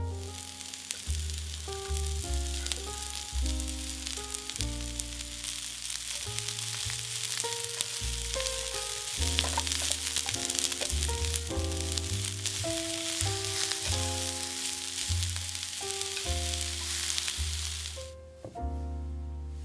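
Food frying in hot oil in a pan: a steady sizzle with fine crackles that stops abruptly near the end. Soft background music plays under it.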